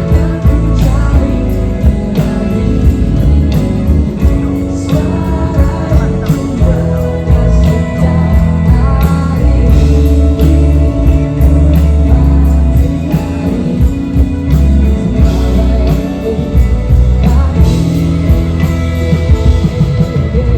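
A rock band playing live, with drum kit, bass, guitar and a singing voice over a steady beat.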